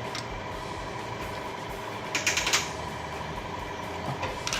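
A quick run of about five sharp metallic clicks about two seconds in, from a ratchet wrench tightening the cylinder head cover bolts. A steady hum sits underneath.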